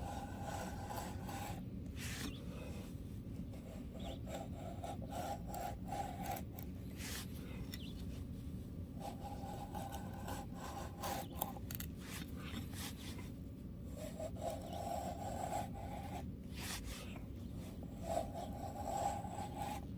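Mora knife blade shaving thin curls down a stick of wood to make a feather stick: a run of irregular scraping strokes.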